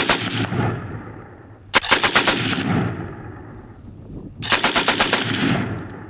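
Three bursts of automatic gunfire, each a quick string of several shots with a long echo trailing off after it. The bursts come at the start, about two seconds in and about four and a half seconds in, and the sound cuts off suddenly at the end.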